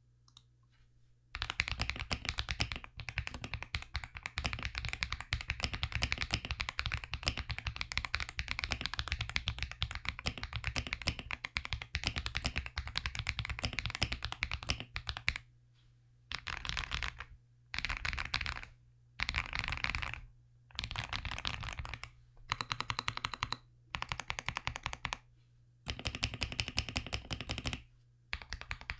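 Typing on a KBDCraft Adam Lego-brick mechanical keyboard with hand-lubed Akko Lavender Purple tactile switches and OEM-profile PBT keycaps: fast, continuous typing for about fourteen seconds, then short bursts of rapid keypresses, each about a second long, with pauses between them. A low steady hum of room noise lies underneath.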